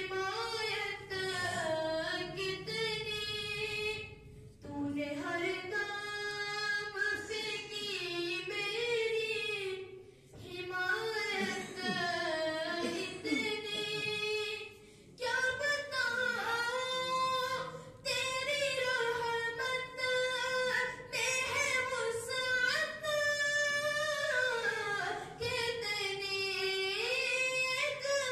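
A boy reciting a naat (Urdu devotional song) unaccompanied into a handheld microphone: one high child's voice singing long, bending, ornamented notes, with short breath pauses between phrases.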